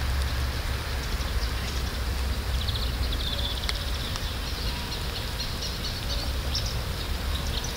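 Outdoor background: a steady low rumble under a faint hiss, with faint high bird chirps, including a quick trill about three seconds in and more chirps near the end.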